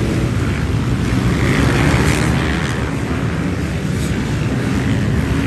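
A field of off-road race motorcycles (enduro dirt bikes) riding past in a continuous stream, many engines revving and overlapping. It swells as a nearer bike passes about two seconds in.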